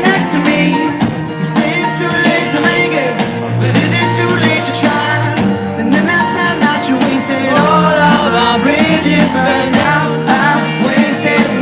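Live rock band playing, with a lead singer's voice over guitar, bass and drums.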